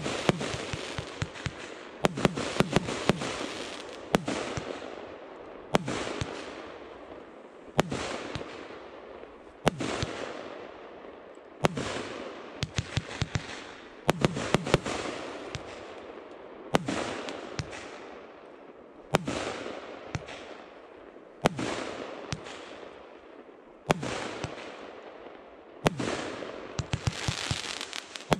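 A 30 mm J-Fireworks '24 Carat Gold' compound firework cake firing shot after shot, about one every two seconds. Each shot is a sharp bang or a quick cluster of cracks, followed by a crackling hiss from the bursting stars that fades away before the next shot.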